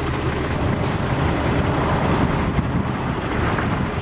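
Semi truck's diesel engine idling, a steady engine noise, with a short hiss about a second in.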